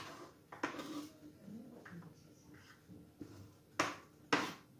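Kitchen knife chopping onion on a plastic cutting board: a few separate knocks of the blade on the board, with two sharper ones close together near the end.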